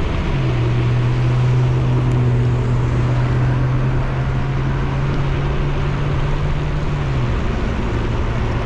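Wind rushing over the microphone of a cyclist riding along a city street, with traffic around. A steady low hum comes in about half a second in and stops after about seven seconds.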